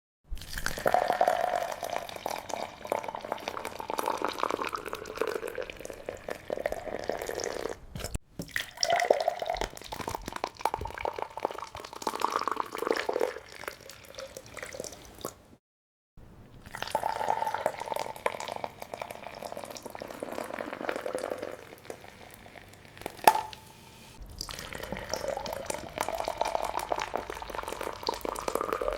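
Wet liquid sounds: dripping and splashing, dense and irregular, in separate stretches broken by two abrupt cuts, with one sharp click in the later part.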